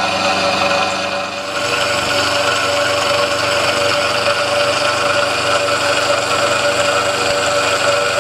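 Small milling machine running, its end mill cutting the end of a long metal plate clamped in the vise: a steady machine whine with several held tones over a rough cutting noise, shifting slightly about a second and a half in.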